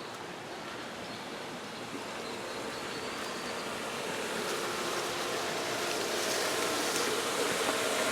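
Swimming pool pump running: a steady rush of water with a motor hum that grows gradually louder toward the end.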